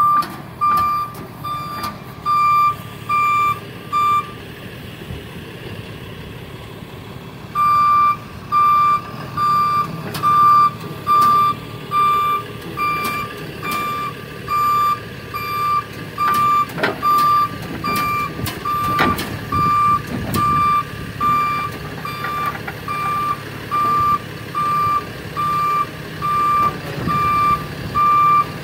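Tow truck's reversing alarm beeping evenly, about three beeps every two seconds, as the truck backs up. The beeping stops for about three seconds near the start, then resumes. Beneath it the truck's engine idles, with a few sharp knocks about midway.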